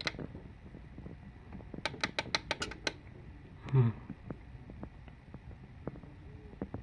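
Digital alarm clock beeping: a quick run of about seven sharp, evenly spaced beeps about two seconds in. A brief louder low sound follows a second later, then only faint clicks.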